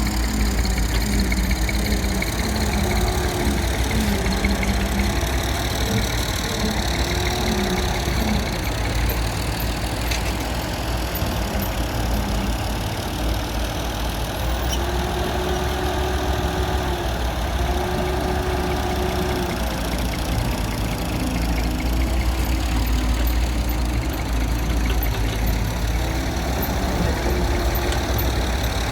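Heavy diesel excavator engine running steadily under working load, with short rising and falling tones in its note as it digs and loads mud.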